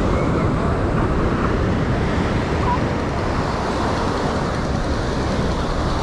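Steady roar of road traffic mixed with surf and wind buffeting the microphone.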